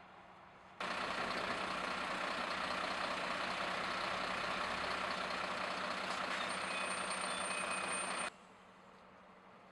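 Steady heavy-truck engine and road noise from a semi-trailer truck creeping past. It starts abruptly under a second in and cuts off abruptly near the end. A thin high squeal joins it about six and a half seconds in.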